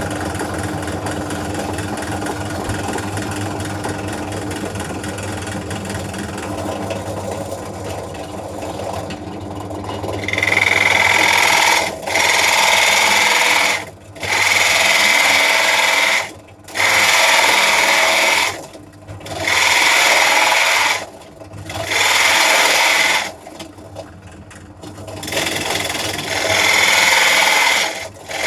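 Ozito DP-350U 350-watt bench drill press running, its motor humming steadily. From about ten seconds in, a 40 mm Forstner bit cuts into pallet wood in seven loud rasping bursts of a second or two each, with short dips between them.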